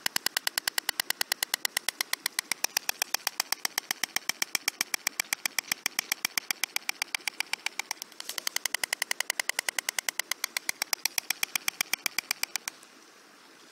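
White storks clattering their bills: a rapid, even train of wooden clacks in two bouts, with a brief break about eight seconds in, stopping about a second before the end. The clatter goes with a pair mating on the nest.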